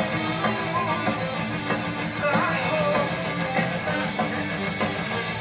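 Loud rock music led by guitar, in a heavy stoner-metal style.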